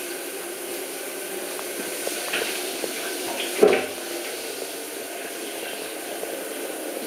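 Shower water running steadily in a small bathroom, with scattered small splashes and drips, and one brief louder knock or splash about three and a half seconds in.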